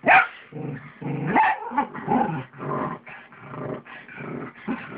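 A pug and a small mixed-breed dog play-growling as they wrestle, a run of short growls with the loudest burst right at the start.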